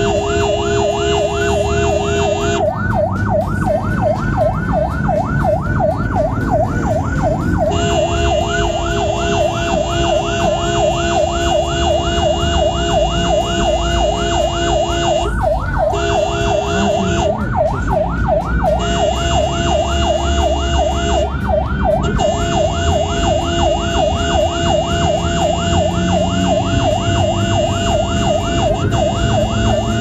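Ambulance electronic siren sounding a fast yelp, a quick rising-and-falling wail repeated several times a second, heard from inside the cab. A steady horn-like tone is held over the siren for several seconds at a time, with a few short breaks.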